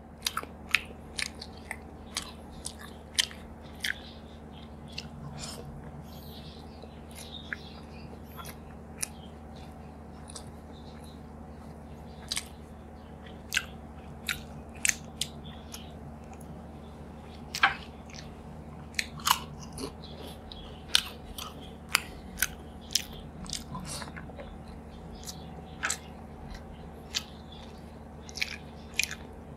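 Mouth sounds of a person eating rice by hand: chewing with many short, irregular wet smacks and clicks, now denser, now sparser, as rice is mixed with the fingers and eaten in handfuls.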